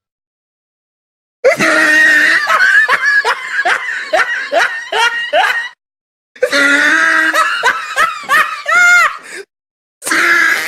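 Meme sound effect of a person laughing, played twice with a short silent gap between, each a few seconds long; another clip starts near the end.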